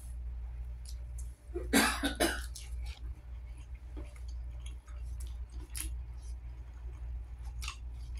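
A man coughs, a short burst of two or three coughs about two seconds in, amid faint clicking mouth and hand noises of eating with his fingers. A steady low hum runs underneath.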